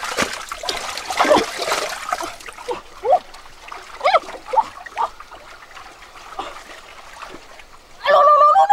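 Hands splashing and sloshing in muddy water at the bottom of a flooded mud hole, then wet mud squelching in short squeaky bursts. A brief, loud held tone sounds near the end.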